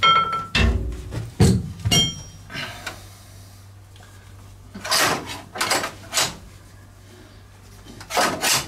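Metal hand tools knocking and clinking: a few sharp, ringing metal clanks in the first two seconds, then scraping and shuffling twice as wrenches are picked through.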